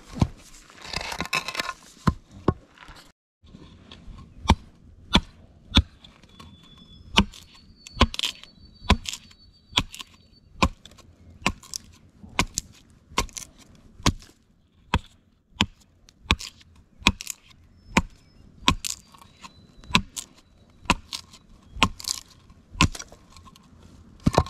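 Large knife chopping down the edge of an upright wooden board again and again, shaving off curls for kindling: a sharp wooden knock roughly every two-thirds of a second.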